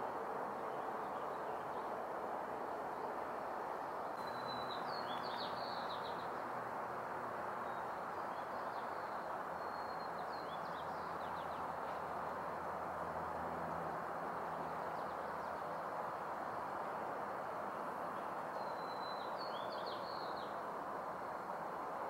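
Small songbird chirping in short phrases three times, several seconds apart, over a steady outdoor rushing hiss.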